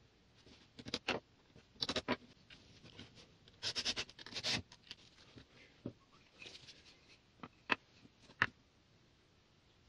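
Wooden parts handled and knocked together on a workbench, with a cordless drill driving a screw into the wood for about a second, a few seconds in. Two sharp knocks near the end.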